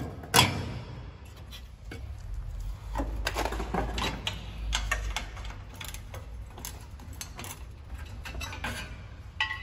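Scattered metal clicks and knocks of hand tools and a rusty steel bumper mounting bracket being worked loose from the front end of a car. The loudest knock comes just under half a second in.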